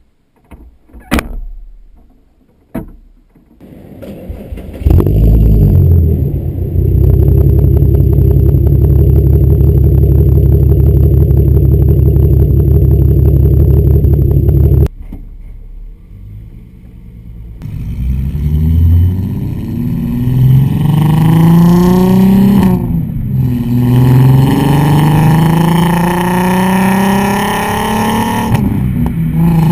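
12-valve VR6 in a Mk4 VW Golf, breathing through a 2.5-inch 42 Draft Designs exhaust with no resonator and an OBX header. After a couple of clicks the engine starts about five seconds in and idles steadily. After a break it is heard driving, with the revs climbing and dropping repeatedly as it accelerates and changes gear.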